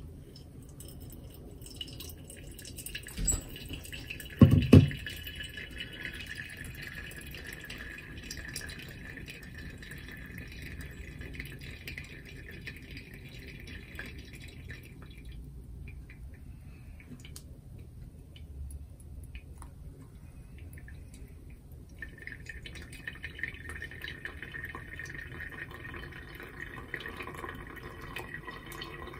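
A thin stream of hot water from a gooseneck kettle pours onto coffee grounds in a Kalita Wave dripper, with coffee dripping into the glass server below. The pour runs in two spells with a quieter pause of several seconds between them, and there are a couple of low thumps about four seconds in.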